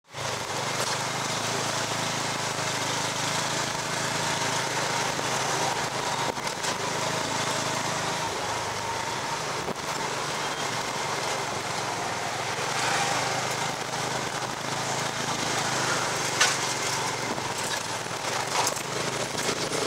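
Small motorcycle engine of a tuk-tuk (remork) running steadily as it pulls the passenger carriage through the street, with passing scooters in the street noise. A single sharp knock comes about 16 seconds in.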